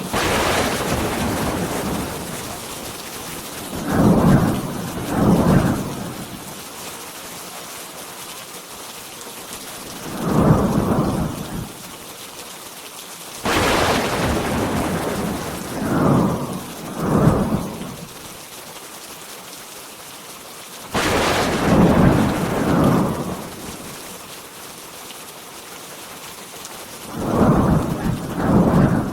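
Steady heavy rain with repeated rolls of thunder. Sharp loud claps come about halfway through and again about two-thirds of the way in, each fading into rumble.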